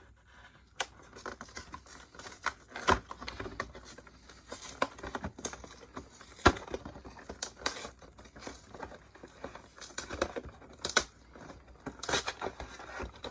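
Cardboard and plastic packaging of a trading-card collection box being opened by hand: irregular crinkling, scratching and tearing with scattered sharp clicks, a few of them louder.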